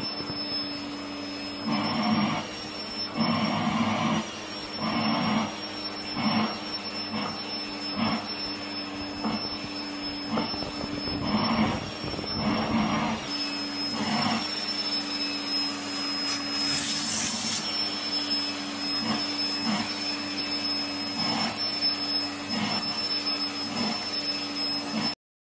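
Vacuum cleaner running steadily with a thin high whine over its hum, its hose nozzle being worked over a cat's fur. Louder rushing swells come every second or so as the nozzle moves through the coat. The sound cuts off abruptly near the end.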